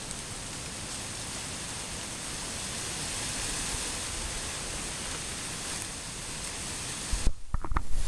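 Steady rushing outdoor noise with nothing standing out of it. About seven seconds in, it drops away and a few loud knocks and bumps follow, the camera being handled.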